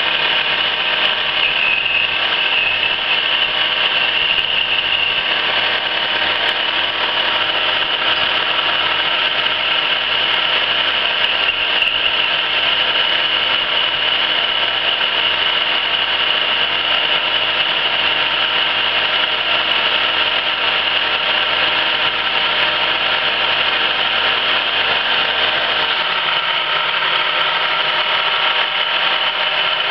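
1974 Emi-Mec E Sprint plugboard automatic lathe running, cutting small turned parts under flowing coolant. It makes a steady machine hum with a high whine over it, and the low part of the hum drops away near the end. This is a test run with the feeds set slow while the machine loosens up after years unused.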